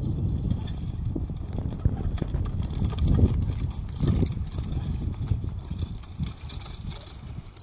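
Work horses walking and pulling spring-tooth harrows over ploughed soil: irregular hoof steps with the clatter of harness and harrow, over a steady low rumble of wind on the microphone.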